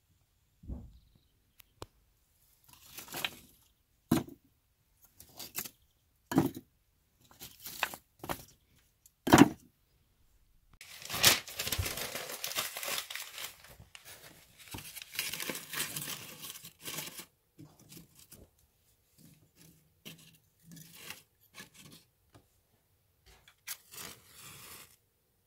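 A fire being laid in a heating boiler's metal firebox: several sharp knocks of wooden kindling blocks, then about six seconds of paper being crumpled and torn, then lighter rustling. Near the end a match is struck.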